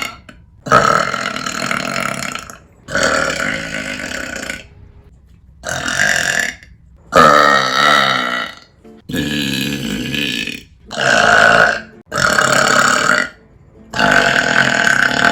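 A woman letting out a string of about eight long, loud, deep burps, one after another with short breaths between.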